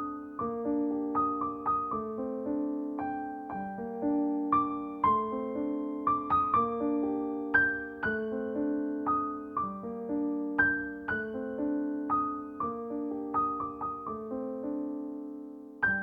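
Background music: a gentle electric-piano melody of plucked notes over sustained chords, moving at a steady even pace.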